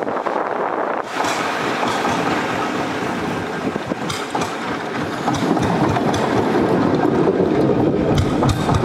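A boat engine running steadily at speed. It is loud and dense with a low churning rumble, and it cuts in suddenly at the start.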